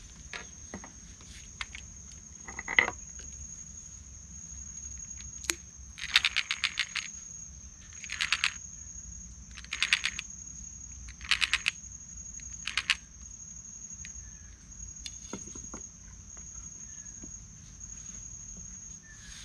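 A steady high-pitched insect drone from the riverside vegetation. Through the middle it is broken by a run of short bursts of rapid clicking, about one every second and a half.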